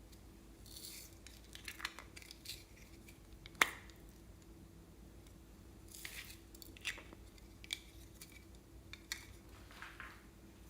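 Glossy slime being mixed and worked: soft, sticky squishes and small clicks come and go, with one sharp click about three and a half seconds in.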